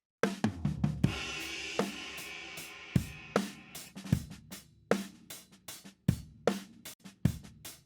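Drum room recording of a full drum kit playing a steady groove of kick, snare and hi-hat, heavily compressed by an API 2500-style bus compressor pushed hard. A crash cymbal hits about a second in and rings out for about three seconds.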